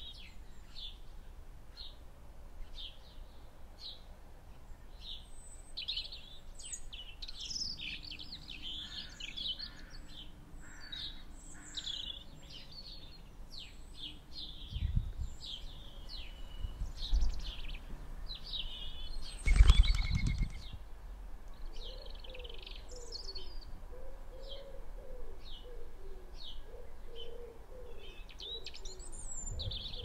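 Small garden birds chirping and calling throughout, with a loud flutter of wingbeats about two-thirds of the way through and a few low thumps shortly before it. Low, repeated dove cooing runs through the last third.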